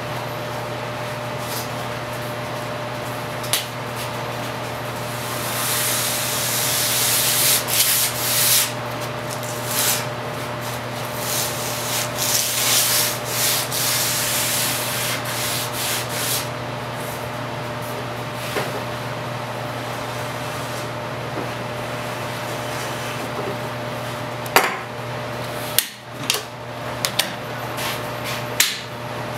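Hand-worked rubbing strokes along the edge of a birch tongue-and-groove floorboard, a run of about ten seconds starting around a fifth of the way in, over a steady hum. A few sharp knocks near the end.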